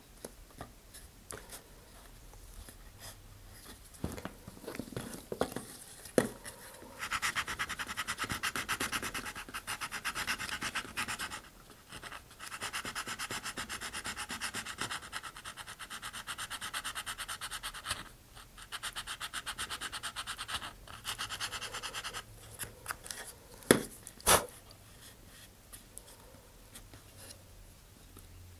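Small hand file rasping on a laser-cut wooden ring, enlarging a notch that was cut too tight. A few handling knocks at first, then fast, steady rasping in three long runs with short pauses, and two sharp clicks near the end.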